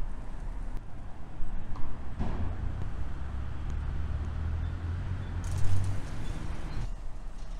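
Street traffic: the low engine rumble of a passing vehicle swells about two seconds in and fades about four seconds later, over steady traffic noise.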